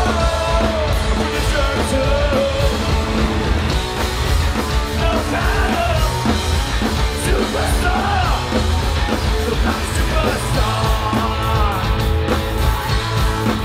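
A punk rock band playing live and loud on electric guitars, bass guitar and drums, with a sung lead vocal over it.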